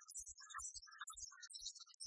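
Quiet music with a low beat and bright high notes.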